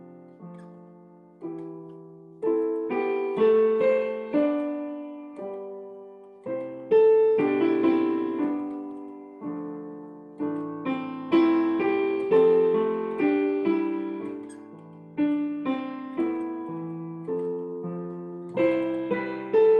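Digital piano playing a slow piece in chords, each struck chord dying away before the next, in phrases with brief lulls between them.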